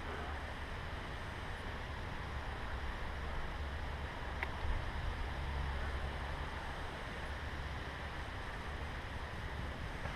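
Steady wind rumble buffeting the microphone, with a broad hiss over it. One short faint click about four and a half seconds in.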